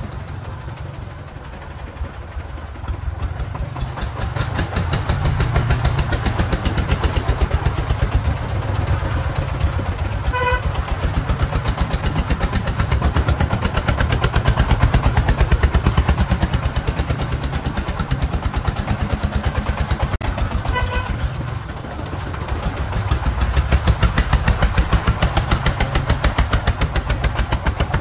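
Công nông farm truck's single-cylinder diesel engine chugging steadily under way, loud and rapidly pulsing. A short horn beep sounds about ten seconds in and again about twenty seconds in.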